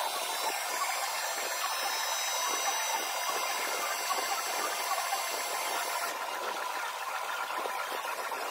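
Steady hiss with a faint hum from running shop machinery, with faint light knocks of wooden boards being handled.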